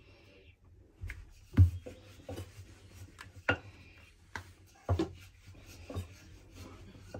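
Wooden rolling pin rolling out a round of wheat dough on a rolling board: soft rubbing and rolling, broken by several sharp knocks of wood on the board, the loudest about a second and a half in.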